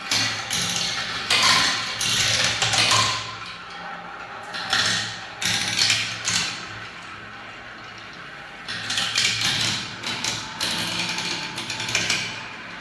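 Balls rolling and clattering down a spiral marble-run ramp, in three spells of rapid rattling and tapping with short lulls between.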